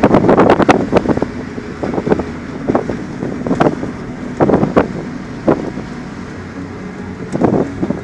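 Wind buffeting a phone's microphone through an open car window, coming in irregular gusts. Beneath it runs the steady low road noise of the moving car.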